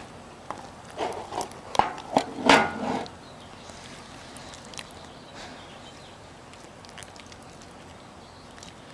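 Clear glue slime squelching and popping as it is kneaded by hand, a few louder squishes in the first three seconds, then only faint sticky ticks.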